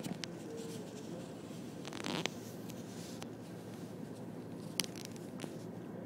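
Handling noise on a phone's microphone as the camera is swung around: a rustling scrape about two seconds in and a few sharp clicks, over a steady low background rumble.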